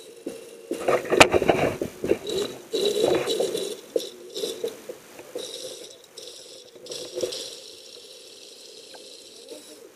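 Water sloshing and gurgling, muffled as if heard underwater, with irregular knocks and rattles, a sharp knock about a second in; the activity is busiest in the first few seconds, then dies down to a quieter wash.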